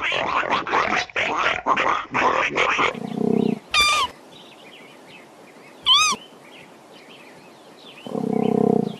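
Wild animal vocalising: a fast series of rough grunting strokes for about three seconds. Then come two short, high calls that rise and fall, about two seconds apart, and a low rumbling growl near the end.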